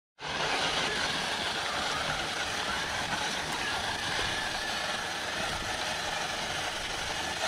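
A 1/10-scale RC crawler's electric motor and gear drivetrain running in a steady, even whir, starting abruptly about a fifth of a second in.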